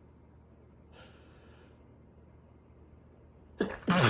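A man's sneezing fit, in the pause between sneezes: a faint sniff or breath about a second in, then a sharp gasping intake near the end as the next sneeze breaks out.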